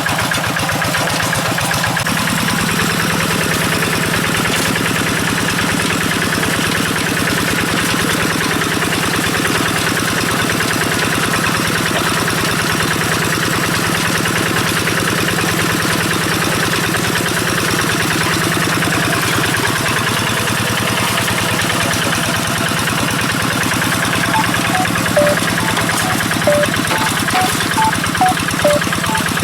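Kubota RD85DI-2S single-cylinder diesel engine of a two-wheel hand tractor running steadily with a fast, even firing pulse. A few short high chirps sound near the end.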